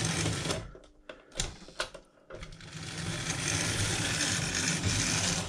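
Märklin 3091 BR 18 H0 model steam locomotive running on metal track, its AC motor and gears whirring. About half a second in it stops, a couple of clicks follow as the transformer is turned back to reverse it, and it runs again the other way.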